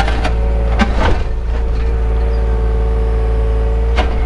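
Takeuchi excavator's diesel engine running steadily under hydraulic load, heard from inside the cab, with a steady whine over the drone. A few sharp clanks come about a second in and again near the end.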